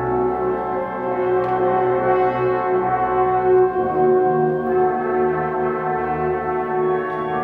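A student concert band playing held, sustained chords with the brass to the fore, moving to a new chord about halfway through.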